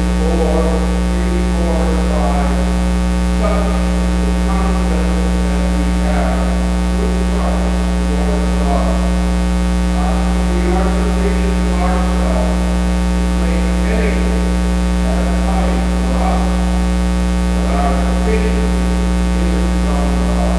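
Loud steady electrical mains hum in the recording, with a voice speaking faintly underneath it.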